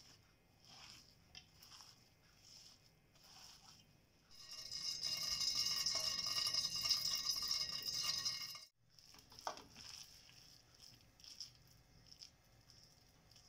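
Hands squeezing and tossing sliced onions with flour in a steel bowl, soft rustling and crunching swishes. About four seconds in, a loud hiss starts as hot oil is spooned onto the onion mixture and sizzles, then it cuts off suddenly after about four seconds and the rustling of hand mixing returns.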